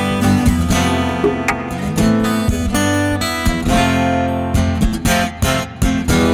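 Solo acoustic guitar played live: chords strummed with sharp attacks over sustained low bass notes.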